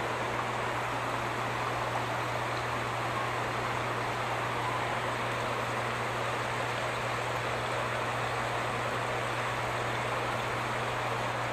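Steady rush of water splashing into a koi pond, with a constant low hum underneath.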